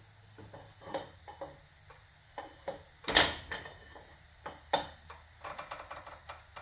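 Pipe wrench with a cheater pipe on it clinking and clanking against the gland of a hydraulic cylinder as it is pulled to tighten the gland. The sharp metal clinks are loudest about three seconds in, with another a second and a half later and a run of small ticks near the end.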